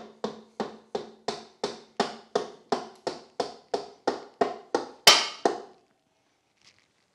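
Rhythmic knocking, about three sharp strikes a second, each ringing briefly. The run ends with two louder strikes about five seconds in, then stops.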